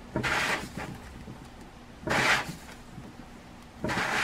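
Plastic 3D-printed bath bomb mold being pushed down and twisted by hand, its halves grinding against the packed bath bomb mix in short gritty scrapes, three times about two seconds apart.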